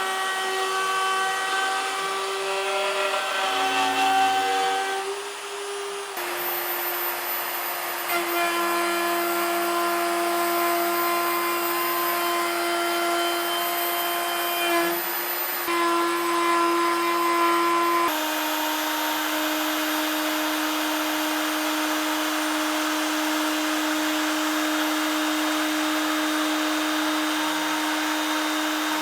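CNC router spindle whining at a steady pitch while an end mill cuts, with a hiss of cutting noise. The whine jumps abruptly to a slightly lower steady pitch about 6 s in and again about 18 s in, as the spindle runs at different speeds.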